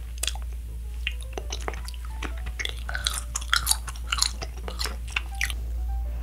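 Close-miked chewing of Nik-L-Nips wax bottle candy: a dense run of quick sharp mouth clicks and smacks as the wax is worked between the teeth, busiest in the middle.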